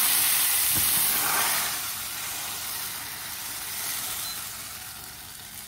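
Pancake batter sizzling as it is poured into hot oil in a frying pan: a loud hiss at first that dies down over the next few seconds.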